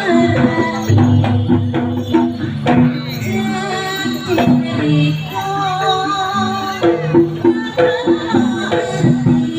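Jaranan accompaniment music: drums and pitched metal percussion play a repeating pattern, with a wavering melody line over it about midway through.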